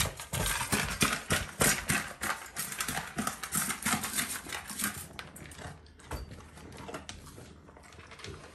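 Alaskan malamute eating dry kibble, a quick irregular run of crunches and clicks that fades after about five seconds.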